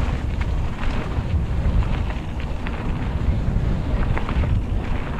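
Wind buffeting a moving camera's microphone: a steady low rumble, with a few faint clicks and rattles over it.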